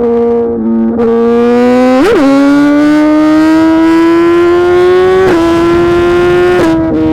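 Suzuki GSX-R 1000 R inline-four through a full titanium SC-Project exhaust, under way. About two seconds in it gives a quick rev blip, then the pitch climbs steadily for about three seconds as it pulls, dropping sharply a little after five seconds and again near the end as the gears change.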